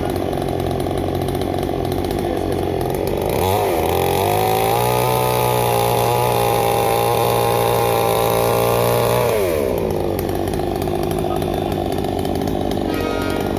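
Chainsaw running at idle, revved to full throttle about three and a half seconds in, held there for about six seconds, then let fall back to idle.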